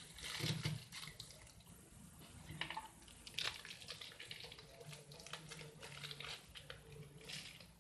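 Plastic wrapper crinkling and rustling in the hands as it is opened, in faint, irregular crackles and small snaps.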